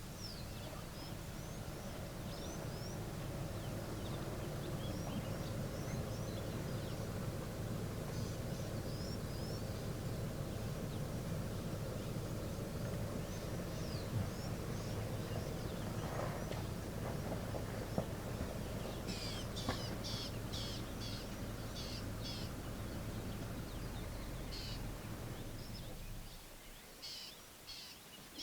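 Birds chirping and calling in the bush, with a denser run of repeated calls a little past the middle and again near the end, over a steady low hum that stops shortly before the end.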